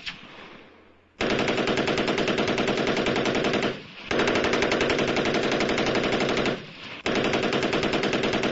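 Semi-automatic AR-15 rifle with a Slide Fire bump stock, fired from a bipod in long strings of rapid fire. It fires three strings of about two and a half seconds each, with short pauses between them.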